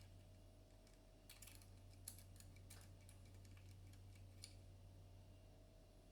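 Faint, irregular small metallic clicks of a Lishi 2-in-1 HU66 pick-decoder working the wafers inside a VW Touareg door lock while it is being picked open, over a low steady hum.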